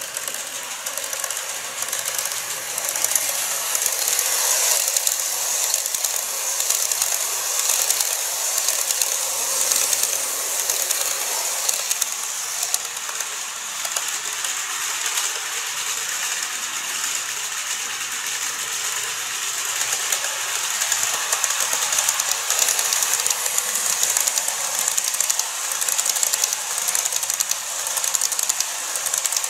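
KATO N-scale model trains running on sectional track: a fast, dense clicking of small wheels over the rail joints over a steady high-pitched whir, louder from about three seconds in.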